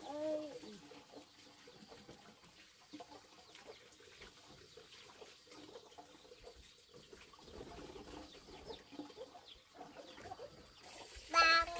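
A tabby kitten eating rice and dried fish from a plate, with faint irregular chewing clicks. A short pitched animal call sounds right at the start, and a loud call with a falling pitch near the end.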